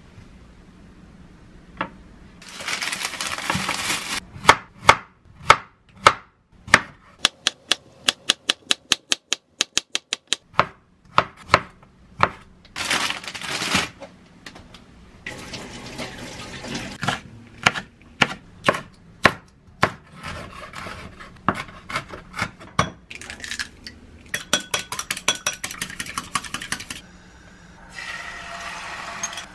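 Kitchen knife chopping zucchini on a wooden cutting board, with a run of quick, even strokes partway through. Around it are scattered knocks and clicks of kitchen handling and a few stretches of hissing noise.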